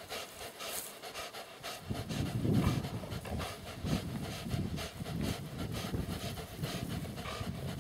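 Dog growling in a low, rough, continuous rumble during a tug-of-war over a stick with another shepherd dog, growing louder about two seconds in.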